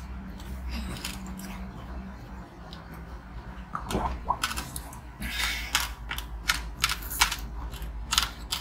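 Crunching bites into frozen passion-fruit ice: sharp cracks and crackles, sparse for the first few seconds, then coming thick from about four seconds in.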